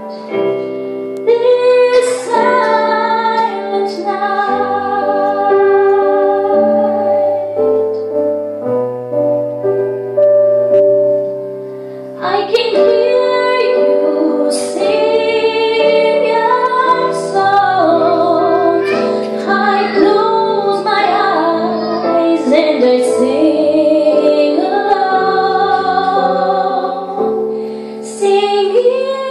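A teenage girl singing a slow ballad live into a handheld microphone, with vibrato on held notes, over an instrumental backing with piano; she pauses briefly between phrases about twelve seconds in.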